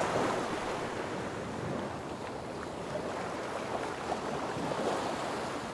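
Steady wash of sea surf, an even rushing hiss of waves.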